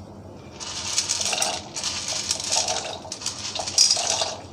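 Dry macaroni pasta dropped by hand into a pot of warm water, the pieces pattering and splashing in. This comes in several spurts, starting about half a second in.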